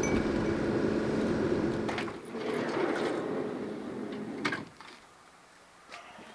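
Steady drone of a Mitsubishi kei van on the move, heard from inside. About four and a half seconds in, a door knocks shut and the drone gives way to quiet outdoor air, with one faint click a little later.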